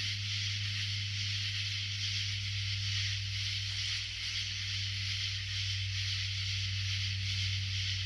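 Chorus of night insects: a steady, dense high-pitched buzz that pulses slightly, over a constant low hum.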